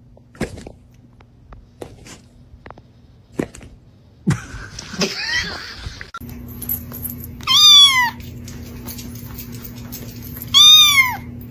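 A cat meowing twice, two long calls about three seconds apart that each rise and then fall in pitch, after a few scattered taps.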